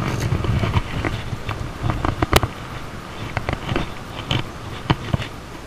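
A small largemouth bass splashing at the surface as it is landed, then being handled, with scattered sharp clicks and knocks; the loudest knock comes about two and a half seconds in.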